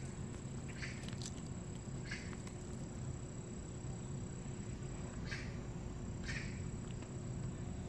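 A black-and-white cat grooming itself, its tongue rasping on its fur in short, soft strokes every second or so, over a steady low background rumble and a faint high steady tone.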